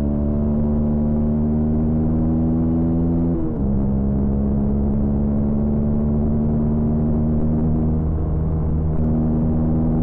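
Honda CB125R's single-cylinder four-stroke engine running under throttle on the road. Its pitch climbs slowly, then drops suddenly with a brief dip in loudness about three and a half seconds in as the rider shifts up a gear, and after that holds roughly steady.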